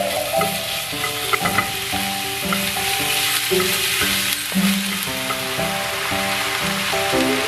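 King oyster mushrooms sizzling steadily in a hot pan as they are stir-fried, with a few light clicks of the utensil against the pan.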